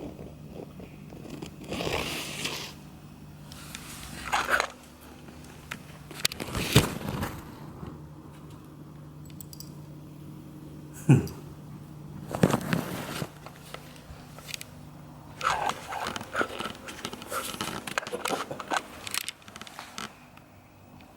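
A cat tunnel rustling and crackling in a run of short irregular bursts as a cat moves in and against it, with a busier stretch of crackles near the end.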